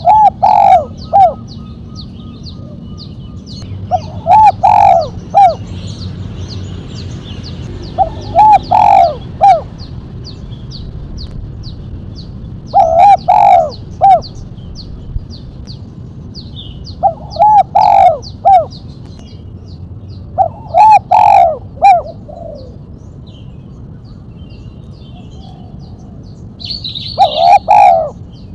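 Spotted dove (tekukur) cooing: seven phrases of three or four notes, one about every four seconds. This is the call keepers call mercik, with a single sharp final 'kuk'.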